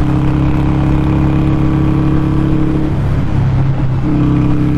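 Harley-Davidson Sportster 883 SuperLow's air-cooled V-twin running steadily at highway cruising speed. The steady drone breaks up for about a second about three seconds in, then settles back at the same pitch.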